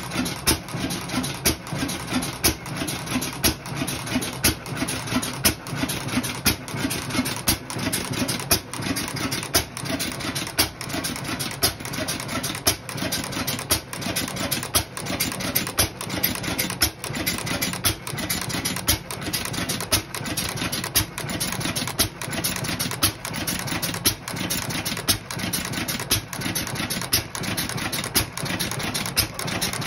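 Bamford 5hp single-cylinder stationary engine running, with regular sharp exhaust beats over a steady mechanical clatter.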